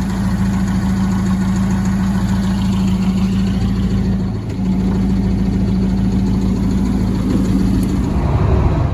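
Jeep's engine running steadily, the sound changing near the end.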